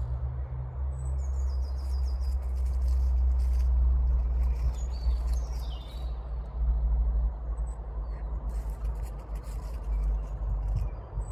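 Birds chirping in short high calls over a loud, steady low rumble.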